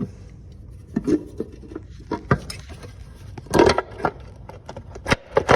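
Scattered clicks, knocks and scrapes as a valve cover is worked loose and handled on a BMW M20 engine, with a louder clatter about three and a half seconds in and two sharp knocks near the end.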